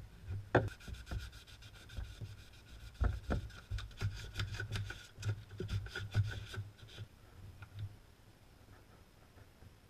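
Quick rubbing and scraping strokes by hand, cleaning the water pump and thermostat mounting areas of a BMW M54 engine, dying down about seven seconds in. A steady low hum runs underneath.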